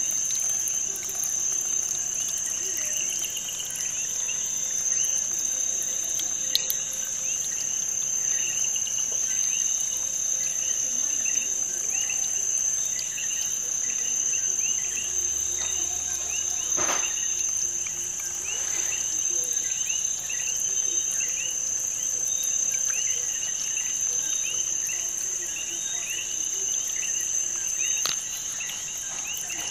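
Insect-like chirping, many short high chirps repeating rapidly over a steady high-pitched whine.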